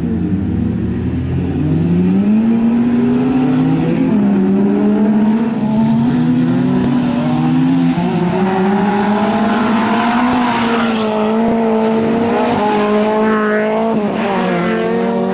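Small-engined autocross cars racing on a dirt track. The engine note rises over the first two seconds and then stays high, dipping briefly twice, with a second car's engine climbing in pitch near the end.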